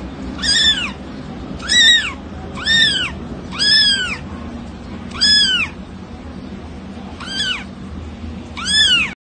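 A cat meowing over and over: seven short, high-pitched meows that rise and fall in pitch, roughly one a second.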